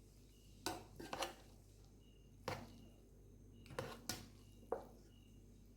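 A serving spoon knocking several times against a pot and plates, in quick sharp taps spaced unevenly, as biryani is being dished out.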